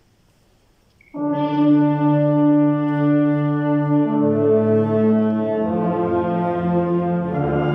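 Wind band of clarinets, saxophones and brass opening a funeral march with slow, held chords. The band comes in together about a second in, and the chord changes a few times.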